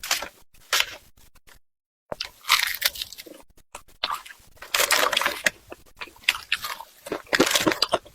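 A person chewing and biting into grilled pork large intestine up close, with irregular bites and chews.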